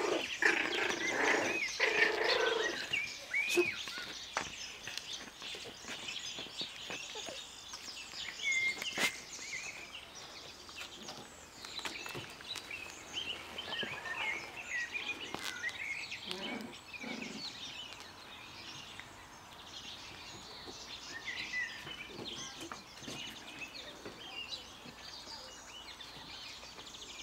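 Small birds chirping and calling in the background, many short high chirps scattered throughout, with a louder noise in the first few seconds.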